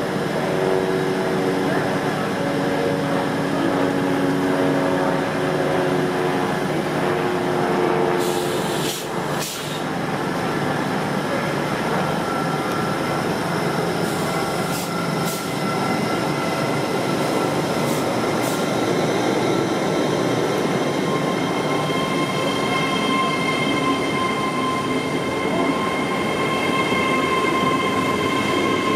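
InterCity 125 (HST) with diesel power cars approaching on the main line: a continuous train rumble with a steady engine hum, and a few sharp clicks between about 8 and 18 seconds in. Near the end, steady whining tones join in as Class 800 trains move off.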